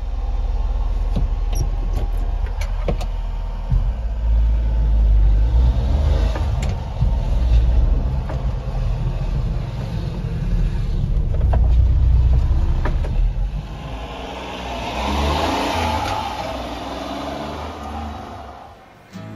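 1996 Honda Acty truck's small three-cylinder engine running as the truck is driven, speeding up and easing off so the sound rises and falls, with a heavy low rumble and some road and wind noise. There are a few sharp clicks in the first few seconds.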